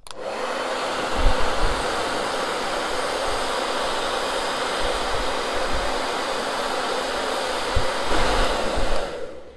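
Hand-held Rusk hair dryer blowing steadily, switched on at the start and cut off about nine seconds in, with a faint motor hum and a few low gusts of air on the microphone. It is drying leftover moisture out from between the stones of a freshly washed brooch.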